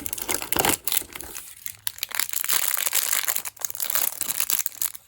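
Thin plastic toy packaging being crinkled and torn open by hand, a dense run of quick crackles with a brief lull about a second and a half in.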